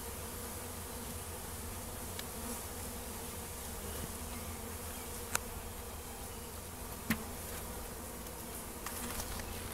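Honeybees from a newly installed package buzzing around the hive in a steady hum, with two sharp clicks about five and seven seconds in.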